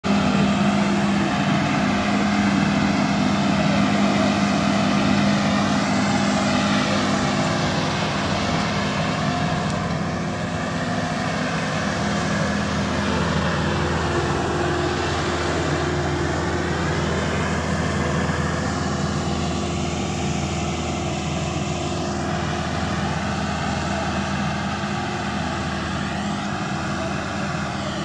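Rice combine harvester running while working, a steady engine drone with a slight change in its low tone about twelve seconds in.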